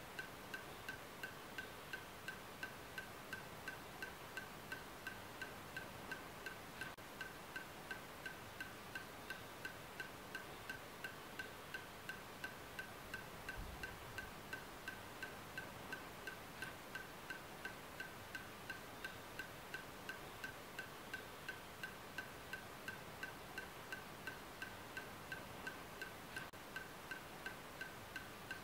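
A soft, pitched tick repeating steadily a little over twice a second over a faint hiss: a ticking pulse laid on as background music.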